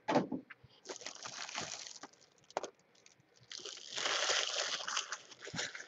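A knock as a cardboard card box is set down on the table, then two spells of crinkling and rustling plastic wrap, the second and louder one about halfway through.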